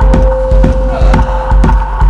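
Music for a dance performance, with a deep, heavy beat about twice a second and a held high tone that stops near the end.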